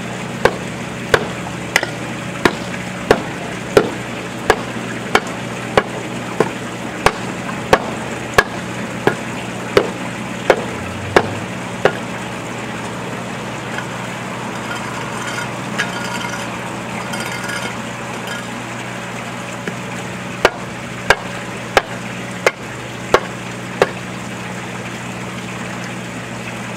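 Steel hand tamper pounding a pothole patch of pre-mixed asphalt repair material to compact it: a steady run of sharp thuds, about three every two seconds, then a pause of several seconds, then about six more.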